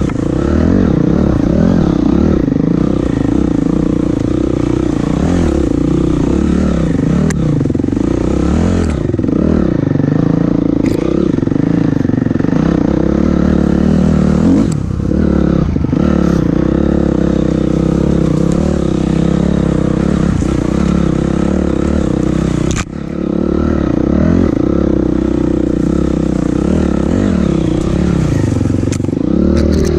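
Dirt bike engine revving up and down with constant throttle changes on a rough trail, dropping away briefly twice, around 15 and 23 seconds in. Occasional knocks and rattles come from the bike over rocks.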